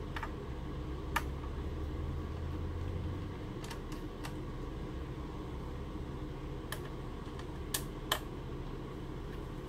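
Small screwdriver working screws out of the back cover of a Dell Inspiron 2350 all-in-one: scattered sharp clicks of metal on the screws, the loudest two close together near the end, over a steady low hum.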